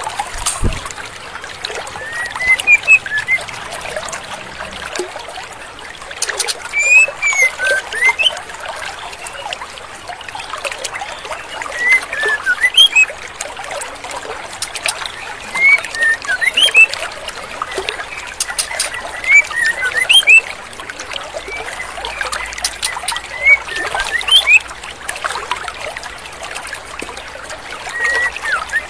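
Female white-rumped shama (murai batu) calling: short, sharp whistled notes in brief clusters every three to four seconds, the kind of female call played as a lure to provoke young males. Under it runs a steady sound of flowing, trickling stream water.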